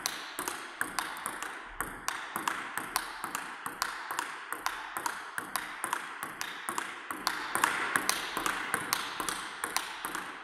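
Table tennis ball in a slow, steady forehand rally: a regular run of sharp clicks, about three a second, as the ball strikes a penhold bat faced with short-pips rubber and bounces on the table.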